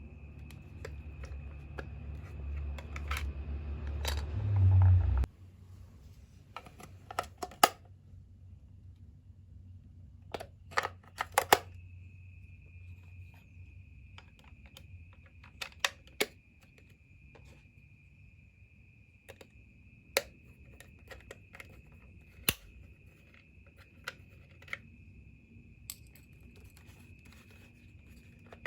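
Sharp clicks and taps of plastic toy parts and packaging being handled, over a faint steady high whine. For the first five seconds a low rumble builds and then cuts off suddenly.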